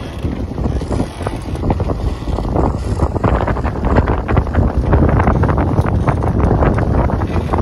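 Wind buffeting the microphone on a sailing catamaran's deck in about 20 knots of apparent wind: a heavy low rumble with gusty crackling that grows denser about halfway through.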